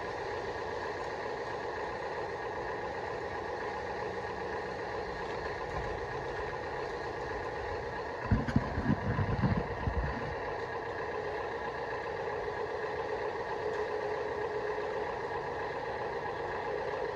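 Electric drive motors and gearbox of a Top Race TR213 (Huina-type) RC wheel loader whining steadily as it drives over rough ground. A louder low rumble lasts about two seconds, starting some eight seconds in.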